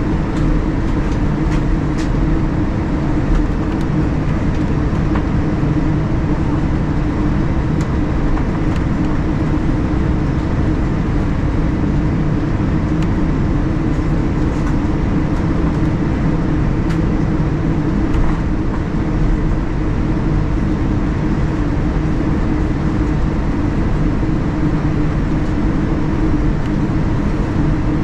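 Steady cabin noise of a Boeing 787-10 taxiing, heard from inside the cabin: its Rolls-Royce Trent 1000 engines humming at low power, with the rumble of the rolling airframe and a few faint clicks.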